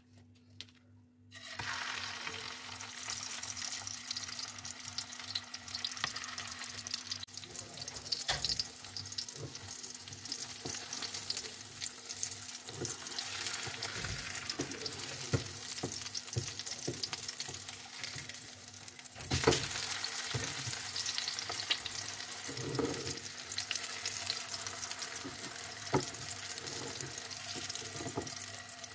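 Chicken kebab patties sizzling in shallow oil in a frying pan. The sizzle starts about a second and a half in, with scattered pops and clicks, and grows louder about two-thirds of the way through.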